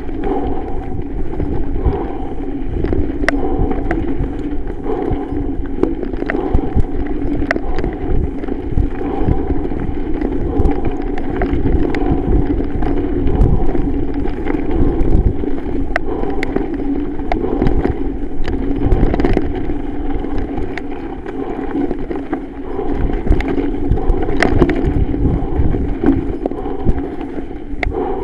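Norco Range 7.1 full-suspension mountain bike ridden down a dry dirt singletrack: a steady rumble of tyres over dirt and leaf litter with wind on the microphone, and frequent sharp clicks and knocks as the bike rattles over bumps and roots.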